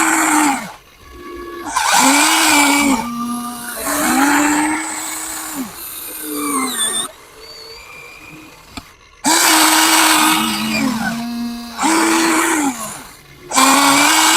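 Huina 1594 RC excavator's small electric motors and gearboxes whining in repeated short runs as its controls are worked, each run ramping up to a steady pitch, holding about a second and dropping off, with some gaps between runs.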